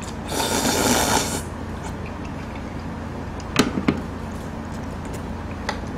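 Seafood noodles slurped loudly off chopsticks for about a second, then a few short clinks and knocks as the bowl and utensils are set down on the table.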